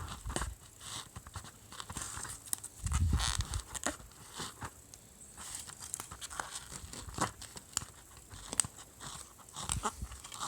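Old foam surround being cut and torn away from the rim of a 6.5-inch woofer cone: irregular scratching, crinkling and tearing with small handling knocks, loudest about three seconds in.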